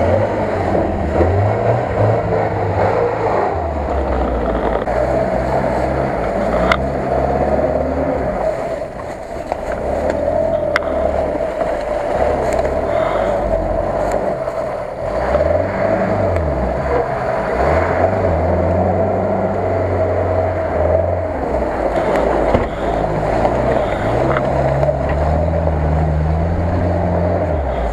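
UAZ off-road vehicles grinding through deep mud ruts, first a UAZ-452 flatbed truck and then a UAZ-469. The engines rev up and fall back again and again under load.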